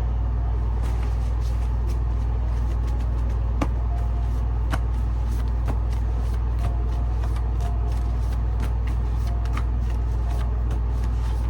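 A steady low rumble with many faint, irregular clicks of tarot cards being handled and shuffled.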